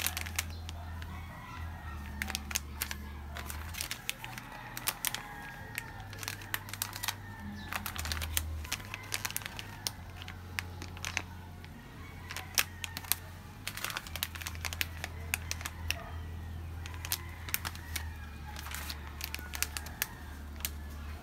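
Crinkling and crackling of holographic foil zip-lock pouches as they are handled and turned over, many sharp crackles throughout, over background music with changing low bass notes.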